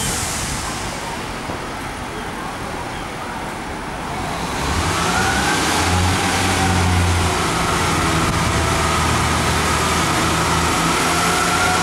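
Class 143 Pacer diesel multiple unit coming into the platform: about four seconds in its diesel engine drone grows louder, with a high whine over it that holds and rises slightly in pitch.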